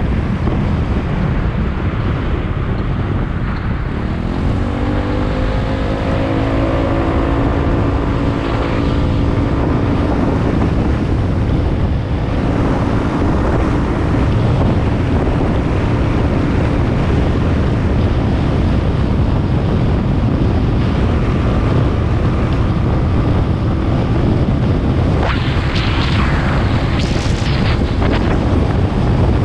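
Wind buffeting the microphone of a camera on a moving vehicle, a steady rumbling rush. About four seconds in, a humming tone rises in pitch and then holds for several seconds.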